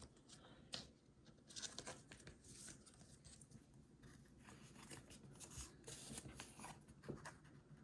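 Faint, intermittent rustling and soft clicks of trading cards being slid into plastic card sleeves.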